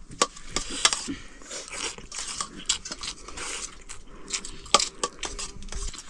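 Metal spoons clinking and scraping on steel plates as people eat from them, a string of irregular sharp clicks.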